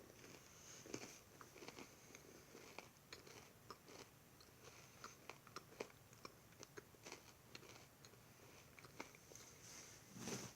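Faint chewing and crunching of a Nature Valley almond butter granola cup, with many short, irregular crisp clicks.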